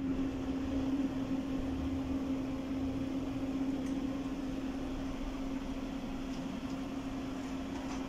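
A machine running with a steady hum: one constant low tone over an even hiss.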